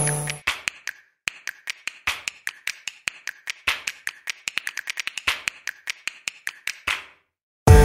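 Rapid, irregular sharp clicks or taps, about six a second, with silence between them; they stop about a second before a loud steady sound starts. A steady hum fades out at the very start.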